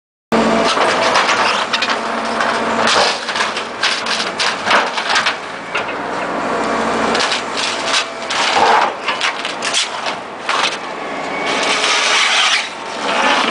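Caterpillar 225 excavator's diesel engine running under hydraulic load while its grapple crushes a car tire and strips it off a steel wheel rim, with repeated cracking, crunching and scraping of rubber and metal. The sound starts abruptly just after the start.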